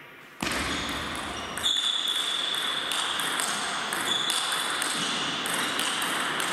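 Table tennis rally: the ball clicking off the bats and the table at irregular intervals. Under it is a steady hiss that comes up suddenly about half a second in, and a thin high whine.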